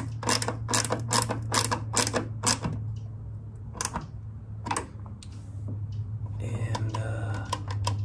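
Ratchet wrench clicking in quick, even strokes, about four a second, as a 10 mm fastener on the fuel lid latch is tightened; the clicking stops after a couple of seconds and picks up again near the end. A steady low hum runs underneath.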